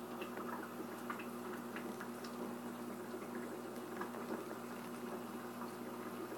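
Aquarium equipment running: a steady low hum with faint bubbling water and scattered small ticks over it.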